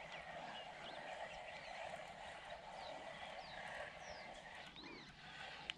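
Quiet outdoor ambience: scattered faint bird chirps over a steady soft background hiss, with one sharp click near the end.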